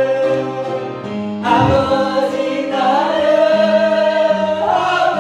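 Voices singing a Korean worship song in long held notes over sustained accompaniment, with a short dip about a second in before the next phrase begins.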